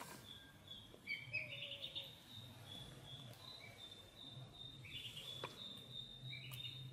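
Ducklings peeping: a run of short, high peeps, one after another. A couple of faint clicks come in the second half.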